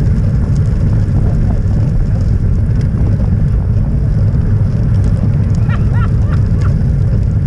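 Loud, steady wind rumble on the microphone of a camera mounted on a road bike riding at speed in a group. A few short high chirps come through about six seconds in.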